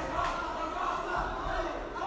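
Spectators shouting and cheering, several raised voices overlapping at once.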